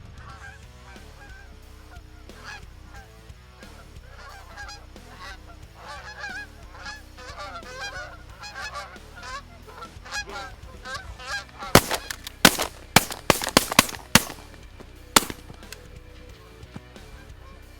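A flock of Canada geese honking, the calls growing busier, then a rapid volley of shotgun shots, about seven in two and a half seconds, and one last shot a second later.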